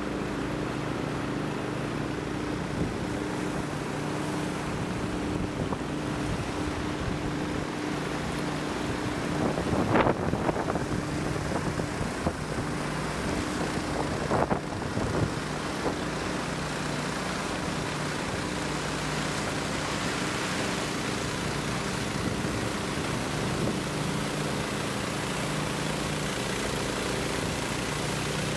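A river in flood rushing past, a steady noise of fast, high water, with a low steady hum beneath it. Two brief louder surges come about ten and fourteen seconds in.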